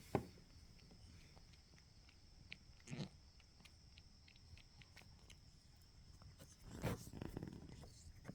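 Domestic cat purring softly, close up, with a sharp tap just after the start and two louder swells about three and seven seconds in.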